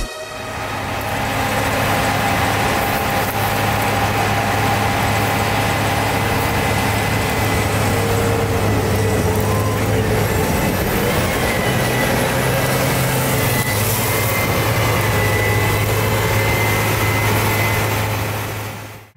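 Heavy diesel farm machinery, a tractor and a corn combine harvester, running steadily at working speed. The engine note steps up slightly about twelve seconds in, and the sound fades out at the end.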